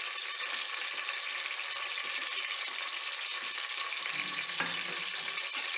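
Sliced onions frying in hot oil and ghee in an aluminium pressure cooker: a steady sizzle.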